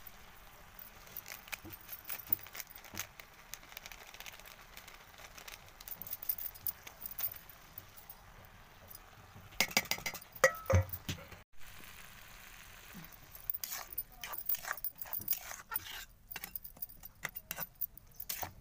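Steel spatula scraping and clinking against a steel kadai as chopped spinach is stirred, in scattered strokes. A denser clatter of metal clinks comes about ten seconds in, as spices are tipped in from a steel bowl, and more stirring clinks in the last few seconds.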